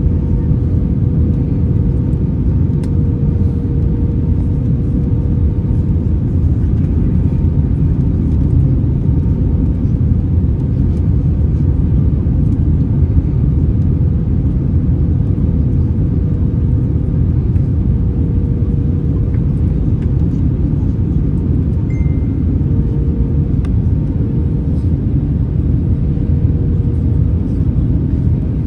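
Airbus A321 cabin noise in flight: the steady low rumble of the engines and airflow, with a faint even hum running through it.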